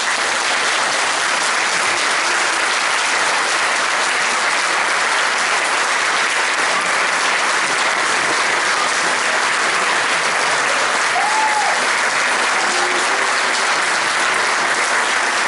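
Audience applauding: dense, steady clapping that breaks out at once and holds at an even level.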